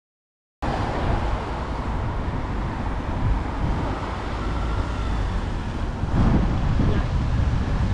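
Road traffic noise with wind buffeting the microphone, cutting in suddenly after a brief moment of dead silence, and swelling louder about six seconds in.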